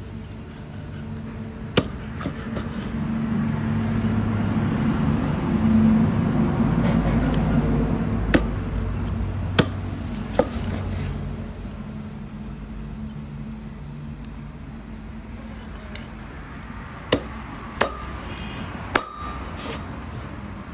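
A cleaver chopping through a fish into steaks on a wooden board: about seven sharp knocks, spaced irregularly, some close together. Under them a motor vehicle's engine rumbles past, swelling and loudest about six seconds in, then fading.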